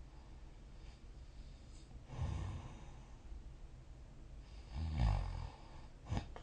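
A sleeping person snoring: a softer snore about two seconds in and a louder, deeper one about five seconds in, with a short sharp snort just before the end.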